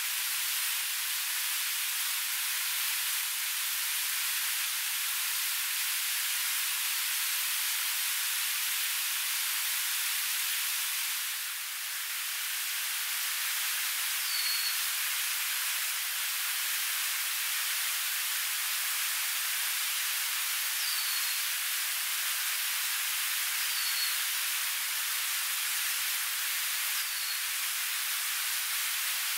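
Banana slices frying in hot oil in a pan on a small camping gas stove: a steady, even sizzling hiss, mixed with the rushing of a waterfall. A few short high chirps are heard in the second half.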